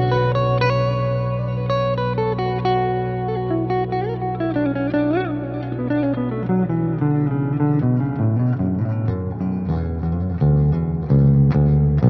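Ibanez Axion Label RGD71ALMS seven-string electric guitar played clean on its Fluence Modern neck pickup in Voice 1, with light reverb. Ringing notes over a held low note, a bent, wavering note about five seconds in, and quicker notes in the second half.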